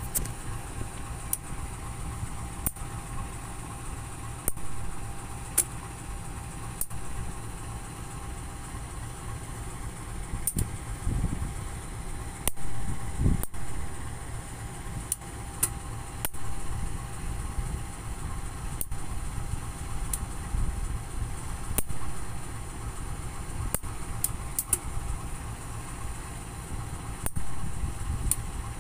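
Diesel-hauled passenger train standing and idling: a steady low engine rumble that swells now and then, while it waits for the signal to clear.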